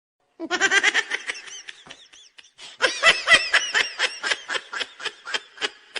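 A person laughing hard in two long runs of quick, repeated bursts, with a short break between them.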